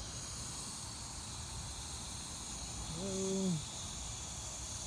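Water spraying hard from a homemade PVC pipe nozzle, a cap drilled with three 1/8-inch holes, fed by a garden hose. It makes a steady hiss that grows a little stronger about halfway through.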